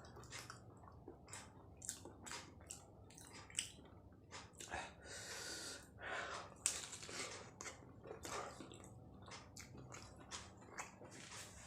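Close-miked eating sounds of someone chewing egg martabak: a run of short wet mouth clicks and smacks, with two longer rushing sounds about five and six seconds in.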